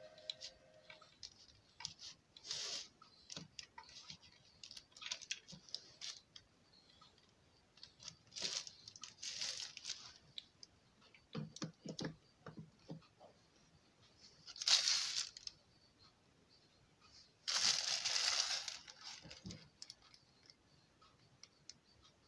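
Faint handling noises from hands working on a motorbike indicator's parts: scattered small clicks and short rustling, tearing-like bursts, the loudest about two-thirds of the way through.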